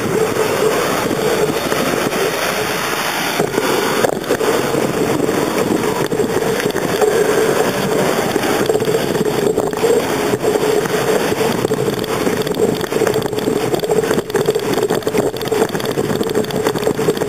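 Steady rushing and rattling of a bicycle in motion, picked up by a camera mounted on its handlebars: road and tyre noise with the frame's vibration, and scattered knocks from bumps in the surface.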